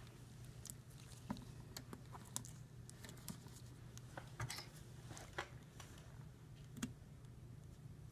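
Faint, irregular small clicks and scrapes of gloved hands handling a chest drain tube and its suture on a plastic training manikin, over a low steady hum.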